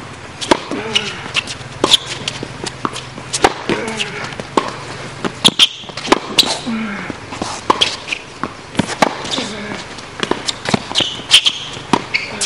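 Tennis rally on a hard court: a run of sharp pops as the ball is struck by the rackets and bounces on the court, one every half second or so, with faint voices in the background.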